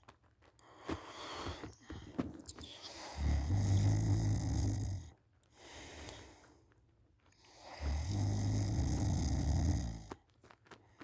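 A person snoring loudly while asleep on their back: two long, low rattling snores about five seconds apart, with quieter breathing between them.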